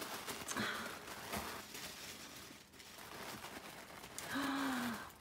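Tissue paper rustling and crinkling as it is folded back in a gift box, with a few light clicks. Near the end comes a short breathy vocal sound.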